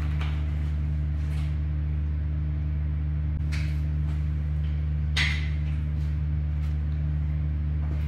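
Steady low motor-like hum with a few short rustles and scrapes of cleaning bottles being handled, the loudest about five seconds in.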